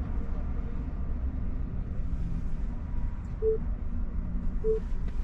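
Low, steady rumble of background noise inside a stationary car, with two short identical electronic beeps about a second apart near the middle.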